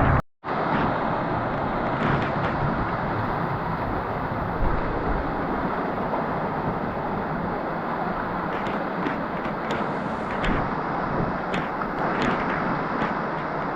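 Steady rush of monsoon water pouring down stone steps as a waterfall. The sound drops out for a moment just after the start.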